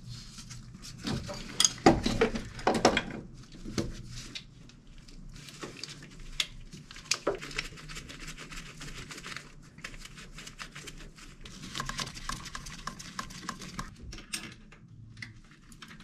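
Rebuilt carburetor and its metal mounting hardware clinking and knocking as it is set back onto the engine and its nuts are run down by hand, with light handling rustle; a cluster of louder knocks about two seconds in.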